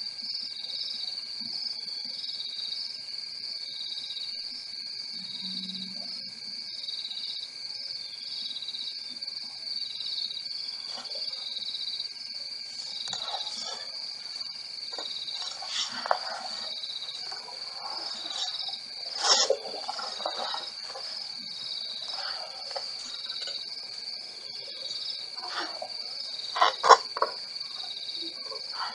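Crickets trilling steadily in a high, even chirr. From about a third of the way in, short calls and sharp clicks come at intervals, the loudest being a sharp crack about two thirds in and a quick cluster of clicks near the end.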